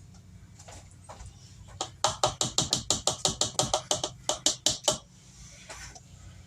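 A whisk beating cake batter in a mixing bowl: a quick, even run of sharp taps, about seven a second, lasting around three seconds.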